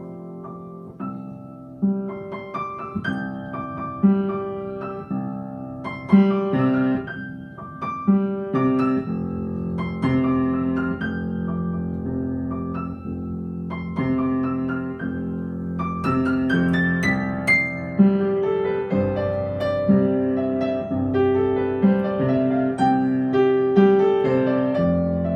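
Solo piano music: a gentle, steady run of chords with a melody over them.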